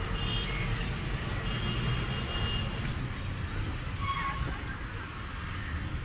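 Steady low rumble with faint bird calls over it: thin high whistles near the start and again around two seconds in, and a short call with a quick dip in pitch about four seconds in.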